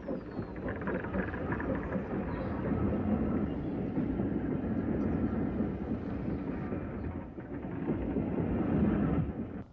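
Steam tank locomotive and its coach running past: a steady rumble of wheels on the rails mixed with steam exhaust, swelling twice and cutting off suddenly near the end.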